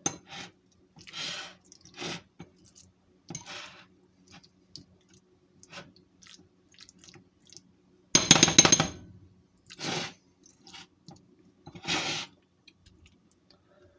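Kitchen handling sounds: dishes, lids and utensils being moved and knocked, a scattered series of short clatters with a louder, longer rattle about eight seconds in.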